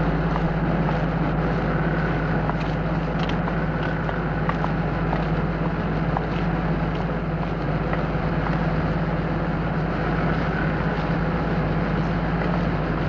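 Large generating machinery running in a machine hall: a steady, unchanging low hum and rumble, with faint scattered ticks over it.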